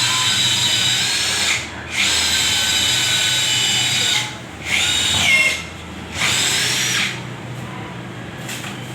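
Power drill running in four bursts with short pauses between them, a high whine; near the end of the third burst the pitch drops as the motor slows.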